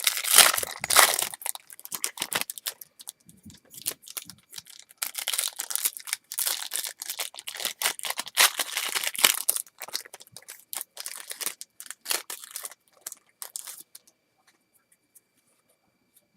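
Baseball-card pack wrapper being torn open and crumpled, a run of short crinkling, tearing rustles that die away about two seconds before the end.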